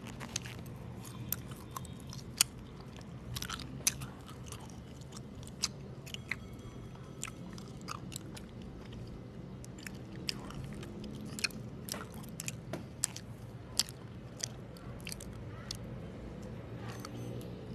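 A person chewing homemade mochi ice cream close to the microphone: wet mouth sounds with irregular sharp clicks, over a low steady hum.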